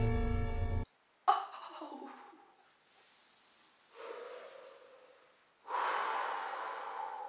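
Orchestral background music cuts off abruptly about a second in. A woman then huffs and blows out breath three times: a sharp one that falls away, a softer one, and a longer exhale near the end.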